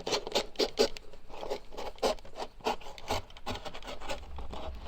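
Thick cardboard being cut by hand: a run of short rasping, scraping strokes, close together at first and more spaced later.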